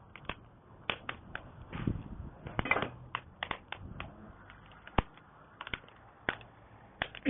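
Wood burning in a campfire, crackling and popping in sharp, irregular snaps, with one louder pop about five seconds in.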